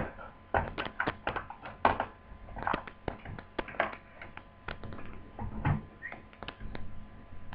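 Irregular clicks, taps and light knocks of hands handling the plastic case of an HP G62 laptop with its battery out, ahead of taking the cover off.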